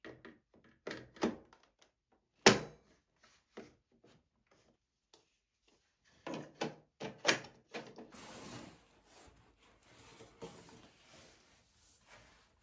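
Objects being handled and set down on a desk: a few scattered knocks and clicks, one sharp knock about two and a half seconds in, a quick run of knocks about six seconds in, then soft rubbing and rustling.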